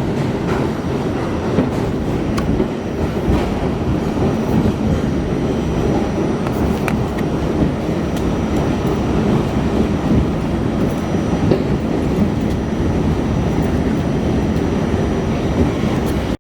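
R68A subway car running on the line, heard from inside the car: a steady rumble of wheels on rail, with scattered faint clicks.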